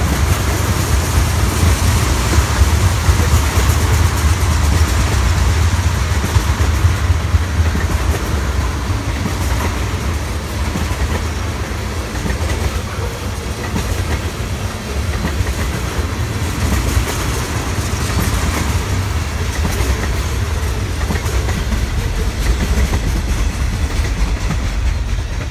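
Freight train of tank cars rolling past: a steady rumble with the clatter of steel wheels over the rail joints.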